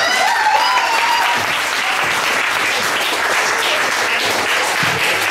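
Audience applauding steadily, with a voice or two cheering over it in the first second or so.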